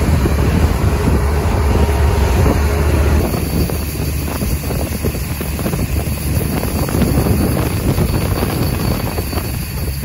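John Deere tractor running while its grain cart's auger unloads shelled corn into a semi's grain trailer: a steady engine rumble under the rushing crackle of kernels pouring onto the load, with wind on the microphone.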